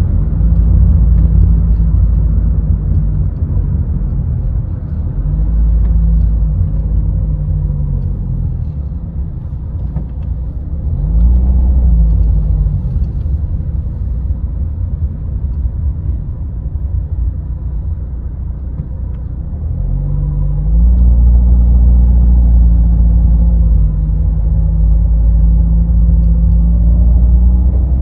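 Car engine and low road rumble while driving, the engine note rising and falling with the throttle. It pulls up and holds at the start, eases off after a few seconds, swells briefly about eleven seconds in, runs quieter for a stretch, then climbs again about twenty seconds in and holds.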